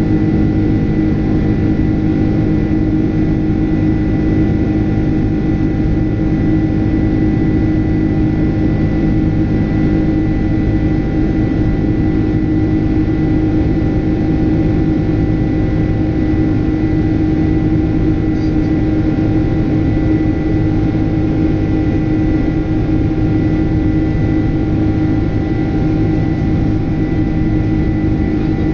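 Boeing 767's General Electric CF6 turbofan engines heard from inside the cabin in flight: a steady drone with several constant whining tones over it.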